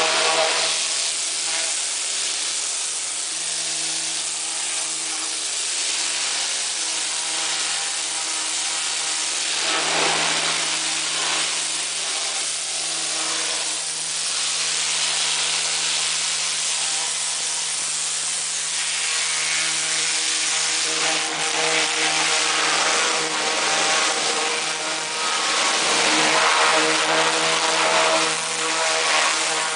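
A high-pressure washer jet blasting barnacle fouling off a boat's hull bottom and sterndrive. The washer's motor hums steadily under a loud hiss of spray that rises and falls as the jet moves over the hull.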